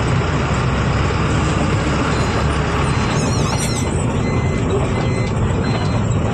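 Diesel truck engine running steadily with road noise while the truck is under way.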